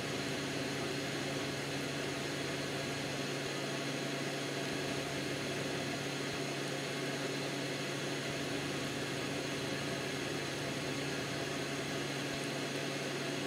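Steady low hum with a constant even hiss, unchanging throughout.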